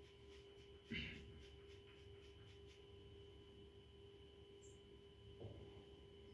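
Near silence: room tone with a steady faint hum, broken by one soft knock about a second in and a fainter tick near the end.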